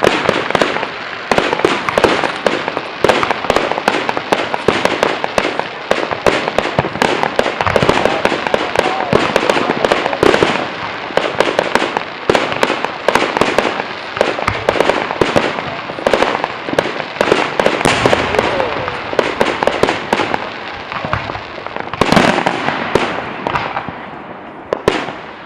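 Fireworks going off in a dense barrage of rapid bangs and crackles, many a second. The barrage eases off near the end after one last strong burst.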